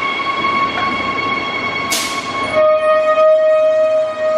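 Queensland Rail electric suburban train running along the platform: a steady rumble with a steady electrical whine over it. A brief sharp hiss comes about two seconds in, and just after it a louder, lower steady tone takes over.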